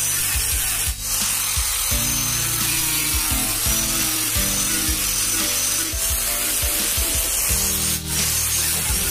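Angle grinder fitted with a sanding disc running and sanding a curved wooden handle, dipping briefly twice as the disc is lifted or moved, over background music with a steady beat.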